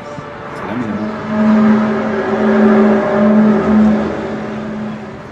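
A loud, steady low droning tone with overtones. It slides up slightly as it comes in about a second in, holds for about three seconds, then fades.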